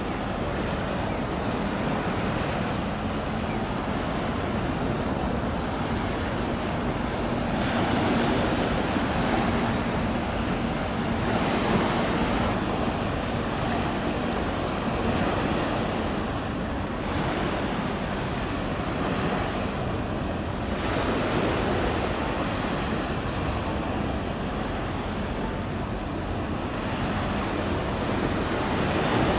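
Steady wind and water noise: wind buffeting the microphone over choppy water, swelling every few seconds. A faint steady low hum runs under it through roughly the first half.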